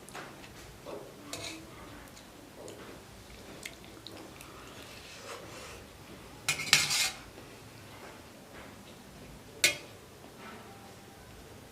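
Cutlery scraping and clinking against a plate while scooping up food, with a louder run of scrapes about two-thirds of the way through and one sharp clink near the end.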